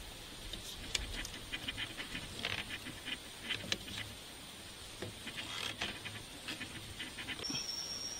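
Rubber strip cut from an old tyre squeaking and scratching in short bursts as it is pulled tight and wound around bamboo poles, with a few light taps. Behind it a steady high insect drone, joined near the end by a second, lower insect tone.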